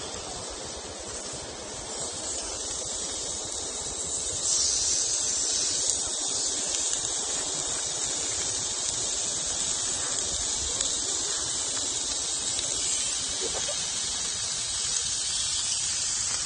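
Slices of meat sizzling on a hot grill plate over a small camp stove, a steady hiss that jumps louder about four and a half seconds in and keeps going.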